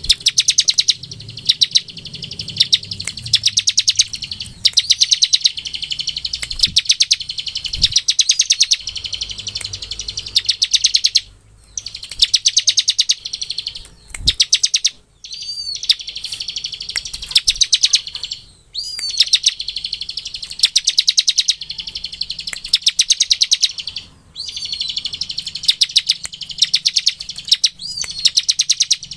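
Bar-winged prinia (ciblek) singing its fast rattling 'ngebren' trill: bursts of one to two seconds of very rapid high notes, repeated again and again with short pauses between them and an occasional brief rising call note.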